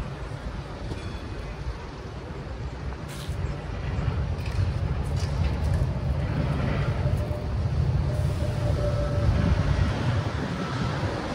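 City street noise: a low, uneven traffic rumble that grows louder about four seconds in, with a faint thin tone near the end.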